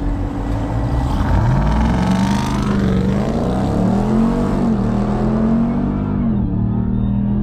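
2021 Ram TRX's supercharged 6.2-litre V8 launching at full throttle with launch control: the engine note starts to climb about a second in, rises through the gears with a drop in pitch at each of three upshifts, then holds steady near the end.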